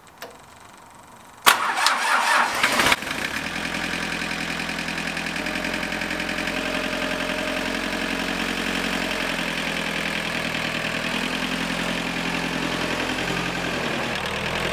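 A Cub Cadet 7360SS tractor's Mitsubishi diesel engine is cranked by its starter for about a second and a half, then catches and settles into a steady idle. It starts readily with the fuel system freshly bled after a new fuel filter assembly was fitted.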